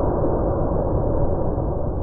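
The blast of a 12-gauge Mossberg 835 Ulti-Mag firing a 3½-inch magnum turkey load, slowed down with the slow-motion footage into a long, deep, steady rumble.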